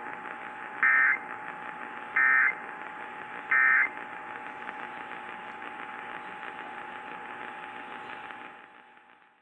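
Emergency Alert System end-of-message signal: three short bursts of data tones, about 1.3 seconds apart, marking the close of the test. Underneath runs a steady radio hiss with a steady tone, which fades out near the end.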